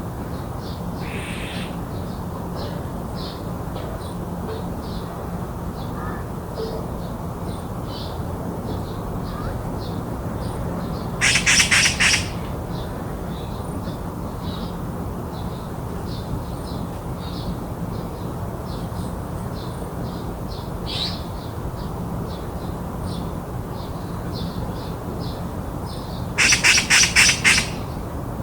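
Magpie chattering harshly twice, each time a rapid rattle of about a second. Behind it, short high chirps repeat about twice a second over a steady low hum.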